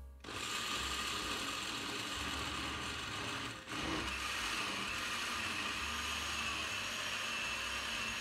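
Homgeek glass-jug countertop blender running, blending soaked black beans and water into a thick batter, with a steady high whine. The motor drops out briefly about three and a half seconds in, then runs again.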